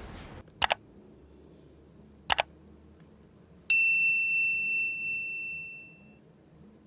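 Two quick double clicks, then a single bright bell-like ding about halfway through that rings out and fades over a couple of seconds: an edited-in transition sound effect.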